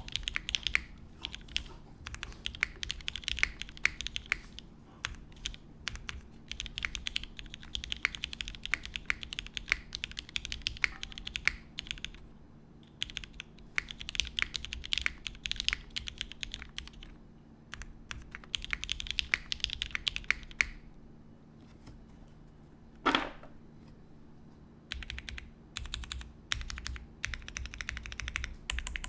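Mechanical keyboard typing on a gasket-mounted Kyohaku with lubed Cherry MX Vintage Black linear switches, GMK keycaps and an aluminium plate. Keystrokes come in quick bursts of a few seconds with short pauses between them, and there is one louder single clack about three-quarters of the way through.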